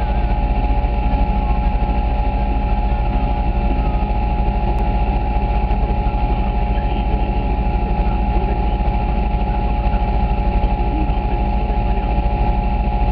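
Quad ATV engines idling steadily close by, holding the same pitch throughout without revving.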